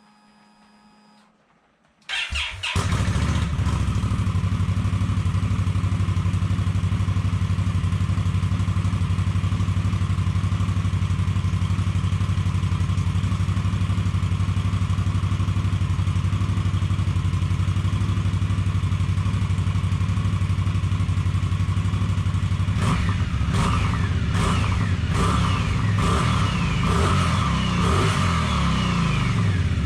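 A 2017 Indian Scout's liquid-cooled V-twin on its stock exhaust is cold-started about two seconds in. It catches and settles into a steady idle. In the last several seconds it is blipped repeatedly, the revs rising and falling several times to about 4,500–5,000 rpm.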